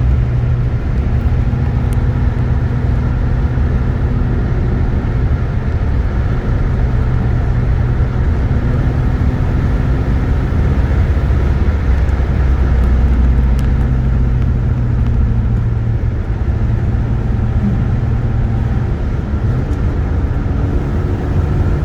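Car engine and road noise heard from inside the cabin while driving at highway speed, a steady drone that swells a little about halfway through and eases off after. The engine is misfiring and sluggish under heavy throttle, which the driver blames on worn plugs and wires.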